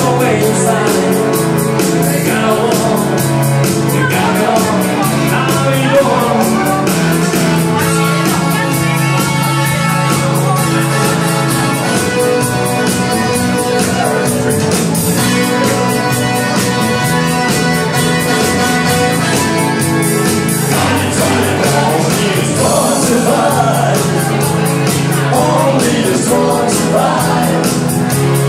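Live pop-rock music played loud through a PA: a man singing into a handheld microphone over keyboard backing with a steady driving beat and bass.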